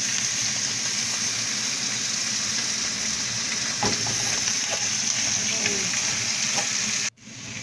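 Tomatoes and serrano chiles sizzling steadily as they roast on a hot comal. The sound cuts off abruptly near the end.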